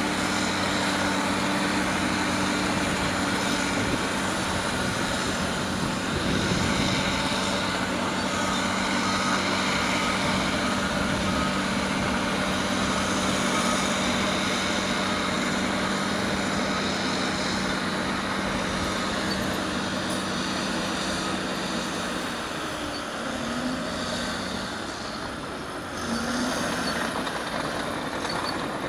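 Heavy diesel earthmoving machinery running steadily with a low, even engine hum. The hum drops away about three quarters of the way through, the sound dips quieter, and then picks up again near the end.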